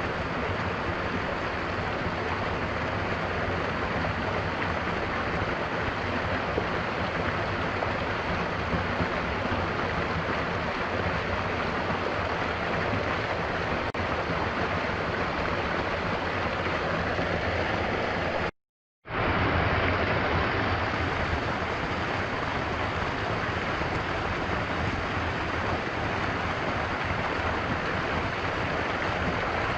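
Stream flowing, a steady rush of water. It cuts out completely for about half a second about two-thirds of the way through, then comes straight back.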